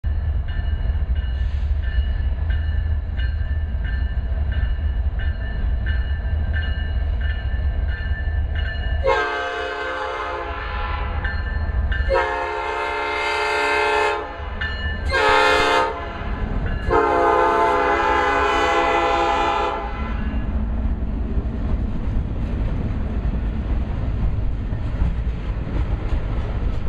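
Diesel locomotives of a freight train rumbling while the air horn sounds the grade-crossing signal: two long blasts, a short one and a final long one. The engines' low rumble carries on after the horn stops.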